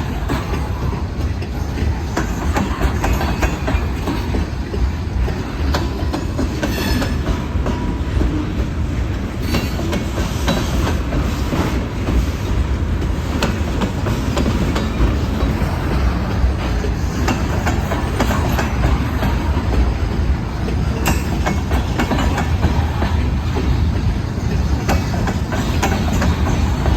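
CSX freight train rolling past, its wheels clacking over the rail joints with a steady low rumble throughout.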